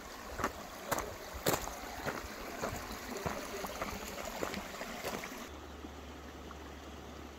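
Footsteps crunching on a gravel track, about two steps a second, over a steady hiss. About five and a half seconds in the sound changes abruptly to a steady, even rushing noise with a low hum beneath it.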